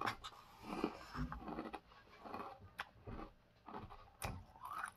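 A person chewing a mouthful of Sour Patch Kids cereal in milk, soft crunching in irregular bursts, with a spoon clicking against the bowl a couple of times.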